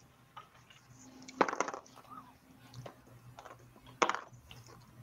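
A few light knocks and clicks of objects being handled, the two loudest about a second and a half in and near the four-second mark, over a faint steady hum.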